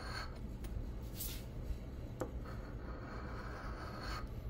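A large coin scraping the silver latex coating off a scratch-off lottery ticket in swiping strokes. There is a short scrape about a second in, a sharp click just after two seconds, then a longer scrape of over a second.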